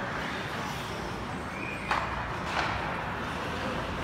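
Ice hockey play heard from the stands over steady arena noise: skates on the ice and two sharp clacks of sticks and puck, about two seconds in and half a second later, with another near the end.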